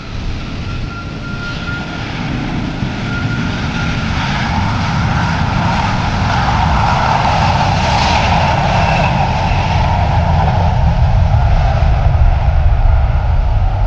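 Jet airliner engines: a broad roar that grows louder over the first few seconds and then holds, with a faint whine above it.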